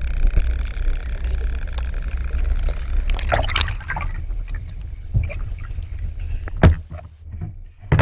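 Water sounds during a swim: a steady low underwater rumble for about three seconds, then irregular splashing and sloshing with scattered sharp clicks.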